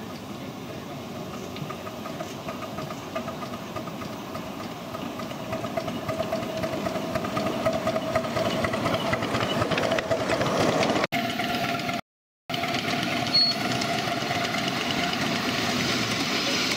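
Miniature ride-on steam locomotive running on a garden railway track, getting steadily louder as it approaches over about ten seconds. After a break about 12 seconds in, another miniature passenger train runs with a steady tone.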